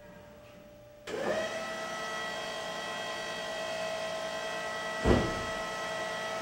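Electric drive of a rod-blank test rig starting about a second in, spinning up quickly to a steady whine as its arm moves to load the fishing rod blank. A single heavy thump comes about five seconds in.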